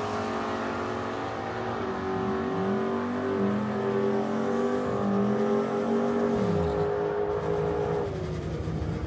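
Drag car's engine at full throttle going away down the strip. Its note climbs and drops back twice as it shifts gears, then falls away and fades near the end as the car lifts off at the far end.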